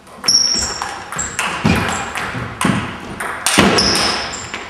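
Table tennis rally: the ball clicking back and forth off the bats and the table in a quick run of sharp pings, each with a short high ring, with a couple of duller thumps among them.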